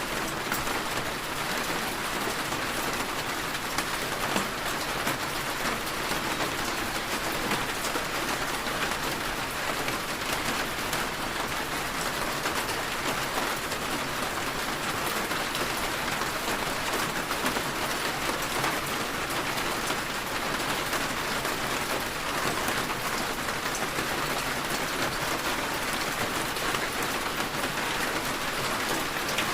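Steady rainfall pattering on a surface, an even dense hiss of drops without pause.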